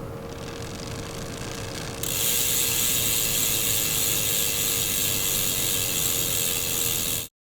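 Bicycle freehub ratcheting: a dense, fast run of pawl clicks that starts about two seconds in, holds steady, and cuts off suddenly near the end.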